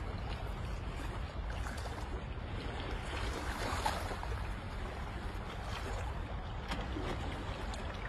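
Steady water noise from a small boat moving over calm water: water swishing along the hull under a low rumble, with a swell about halfway through and a few small splashes.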